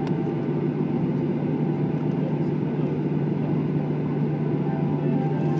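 Cabin noise inside a Boeing 737-800 taxiing after landing: the CFM56 engines idling, heard as a steady drone with a steady low hum under it.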